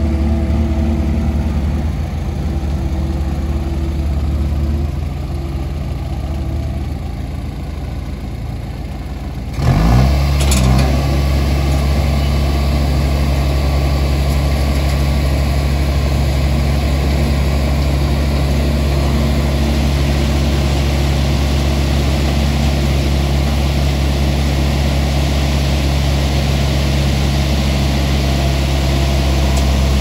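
Diesel engine running steadily on almond-handling machinery, a nut elevator with its nut cart. About ten seconds in the sound jumps louder and a steady rushing hiss joins the engine, as almonds pour through the elevator.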